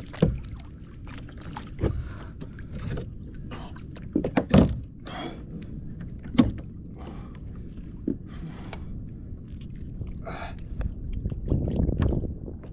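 Irregular knocks and thumps on a fishing kayak, with short noisy rushes between them and a longer rushing swell near the end.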